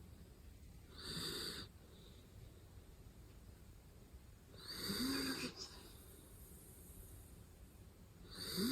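Shiba Inu dog snoring in its sleep: three snores about four seconds apart, the later two with a short rising whistle in them.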